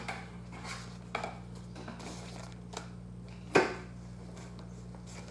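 Gear being handled on a wooden table and in a fabric backpack: a few sharp knocks with soft rustling between, the loudest knock about three and a half seconds in, over a faint steady electrical hum.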